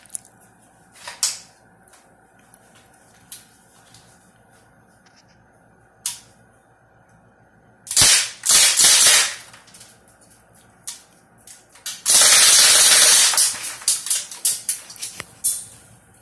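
Full-auto BB gun firing: a few short bursts about eight seconds in, then one longer burst of about a second and a half, followed by scattered single shots. A few isolated clicks come before the firing.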